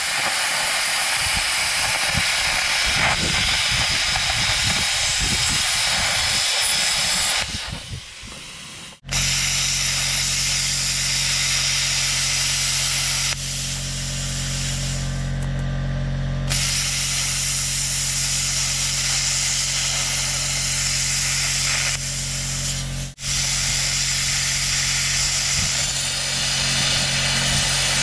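Hand-held air plasma cutter burning through the bolts of a worn bulldozer-blade cutting edge, bolts whose rounded square necks let them spin. The cut is a loud, steady hiss that breaks off about nine seconds in and again briefly around twenty-three seconds. A steady low hum runs under it after the first break.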